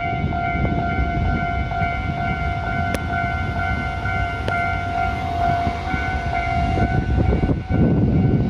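A Japanese level-crossing warning bell rings steadily over the low rumble of a train, and the rumble grows louder near the end.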